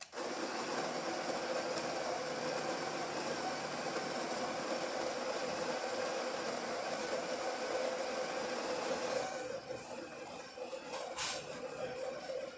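Breville Barista Express's built-in conical burr grinder running, grinding coffee beans for an espresso shot: a loud, steady grinding whir that starts abruptly and thins out after about nine seconds, with a sharp click near the end.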